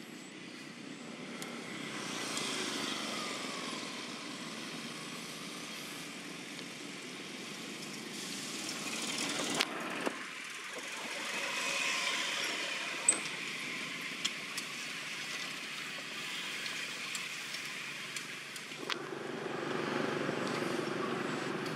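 Road traffic, with motorbikes, passing by: a wash of engine and tyre noise that swells and fades several times. A few short sharp clicks.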